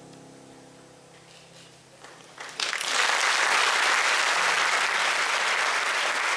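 The last sustained notes of the dance music fade out, and about two and a half seconds in a theatre audience breaks into loud applause that keeps going.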